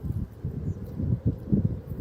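A pause in a European goldfinch's song, filled with an uneven low rumble and soft thumps; one faint high chirp comes about two-thirds of a second in.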